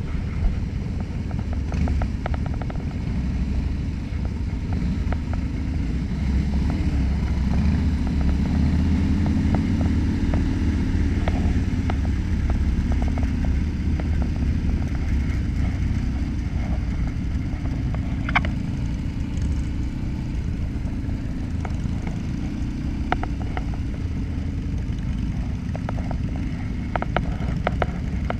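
Cruiser motorcycle's engine running steadily at road speed, heard close up from the rider's position, with the engine note rising and falling about a third of the way through.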